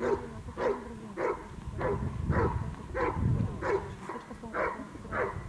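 Hovawart barking steadily at a helper holding a bite sleeve, as in the hold-and-bark of protection work. About ten sharp barks come evenly, roughly two a second.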